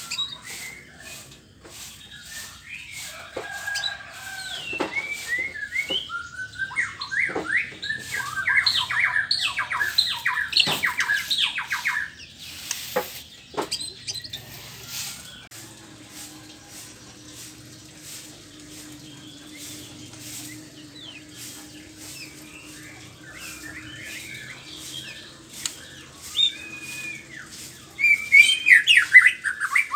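White-rumped shama singing: bursts of rapid, varied whistled and chattering phrases, densest in the first half and again near the end, with sparser song in between.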